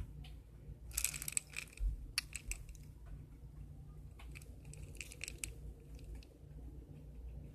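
Dry pasta shifting and clinking in a glass jar as it is tipped over and pet rats root inside it. There is a short rustling clatter about a second in, then scattered light clicks.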